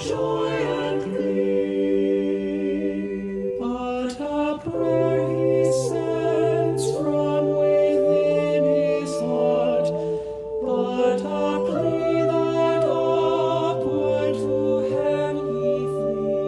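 An a cappella vocal ensemble singing in several parts, holding sustained chords that shift every second or two.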